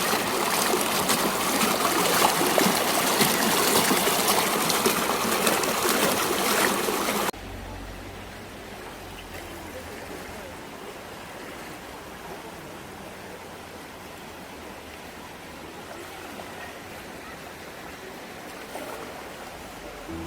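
Mountain valley stream running, loud and steady, then cutting off abruptly about seven seconds in to a much quieter steady background with a low hum.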